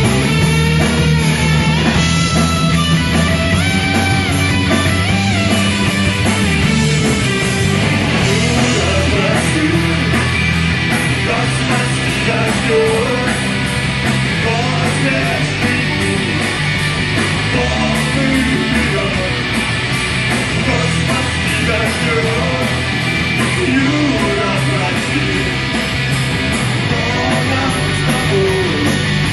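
Rock band playing live on guitars and drums, loud and continuous.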